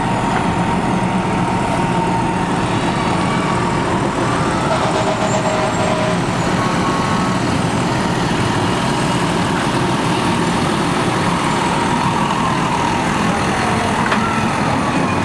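Fire truck engine running as the truck rolls slowly past close by: a loud, steady rumble. Short falling and rising siren tones come in faintly near the end.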